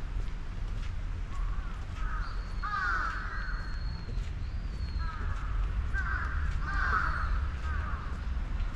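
Birds calling from the park trees: clusters of short harsh calls about three seconds in and again about six to seven seconds in, over a steady low rumble.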